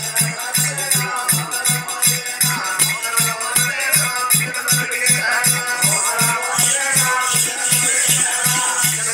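Oggu Katha folk music: a large barrel drum (dolu) beaten in a steady fast beat, brass hand cymbals jingling along with it, and a man singing into a microphone over the top.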